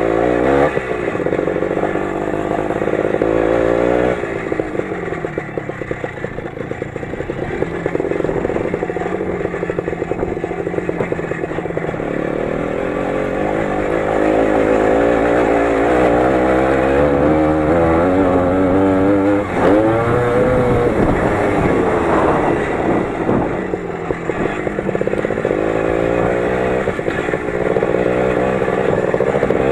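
The 20 hp engine of a Lider 3.221 running under load while driving off-road, its pitch rising and falling as the throttle changes, with a sharp rev-up about two-thirds of the way in. Clattering and scraping come over the engine sound.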